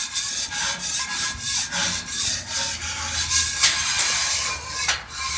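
Scrubbing and scraping across the cooking surface of a welded flat-top grill during cleaning, in repeated back-and-forth strokes.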